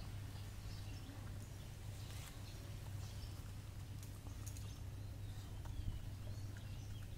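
A dog eating from a stainless steel bowl: faint chewing and mouthing of the food with scattered small clicks, and one louder knock a little before the end. A steady low hum runs underneath.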